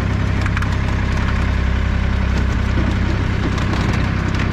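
Small fishing boat's engine idling steadily, with a few faint splashes from a hand-lined fish thrashing at the surface.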